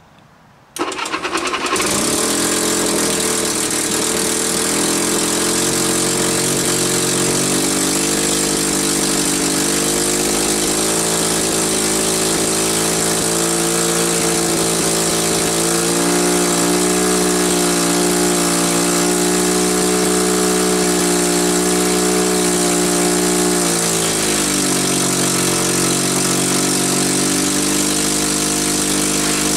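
The Cat D4C's petrol pony (starting) engine catches on a cold start about a second in and runs steadily. Its speed rises a few seconds later and drops back near the end.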